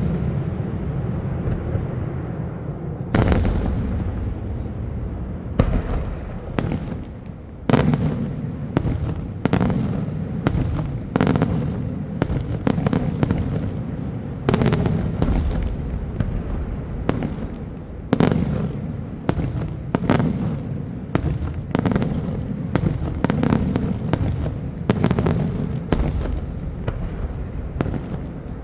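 Daytime fireworks display: a run of loud aerial bangs, a few seconds apart at first, then coming about one or two a second, each leaving a rumbling echo that runs into the next.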